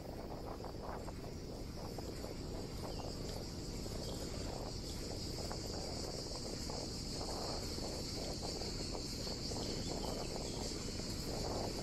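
Steady, high-pitched chorus of insects buzzing, over a low rumble of wind and bicycle tyres rolling.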